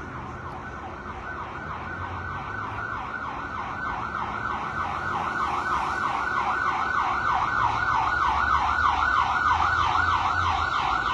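Emergency vehicle siren on a fast yelp, its pitch sweeping up over and over about three times a second, growing steadily louder. Low traffic rumble underneath.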